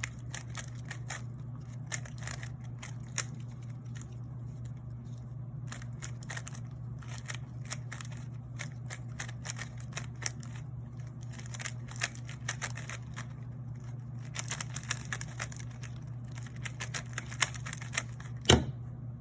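GAN 356 Air M 3x3 speed cube being turned rapidly during a solve: a dense, irregular run of quick light clicks and rattles from the plastic layers, with one sharper knock near the end.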